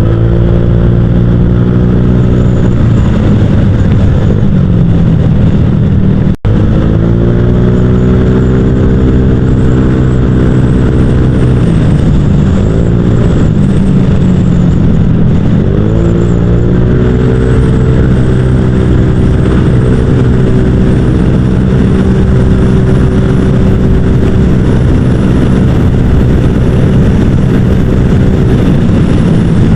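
Honda Vario 150 scooter's single-cylinder four-stroke engine running through a ZRC 'copy CMS' aftermarket exhaust while riding. The note holds steady, with a few dips and rises in pitch as the throttle is eased off and opened again.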